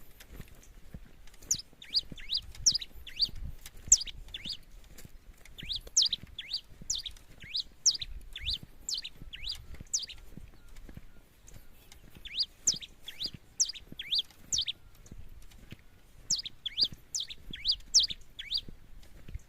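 A pileated finch singing: quick runs of sharp, high notes, each sweeping downward, delivered in four phrases separated by short pauses.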